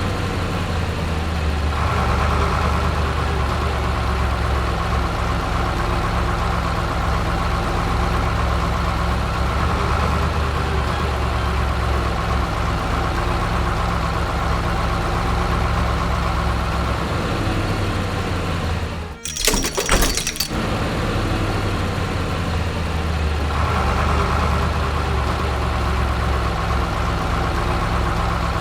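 Steady machine-like engine drone of cartoon construction vehicles mixed with background music. About two-thirds through, the drone drops out for a short burst of sharp clattering impacts, like something breaking, then resumes.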